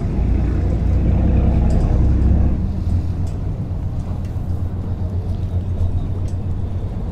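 A passenger ferry's diesel engine rumbling as the boat comes in to the pier; the engine note changes about two and a half seconds in as it manoeuvres alongside.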